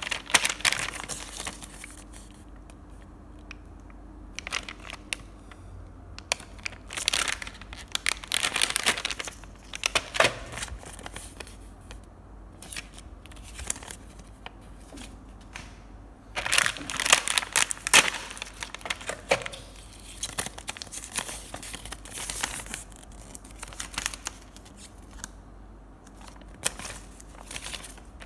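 Cardboard sleeve and clear plastic case of a marker-pen set being handled and pulled apart: irregular crinkling, tearing and clicking, loudest a little past halfway.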